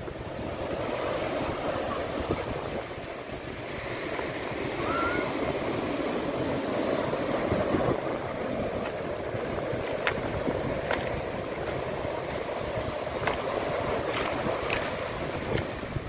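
Pacific Ocean surf washing ashore: a steady rushing of waves, with a few short sharp clicks in the second half.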